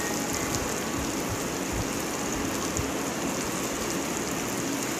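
Hot oil sizzling steadily as masala-coated anchovies (nethili) deep-fry in a shallow pan.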